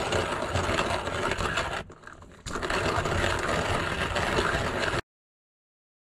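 Xflyee hand-cranked coffee grinder's ceramic burrs crushing coffee beans on a coarse setting as the crank is turned, a steady grinding noise. It breaks off briefly about two seconds in, resumes, and cuts off suddenly about five seconds in.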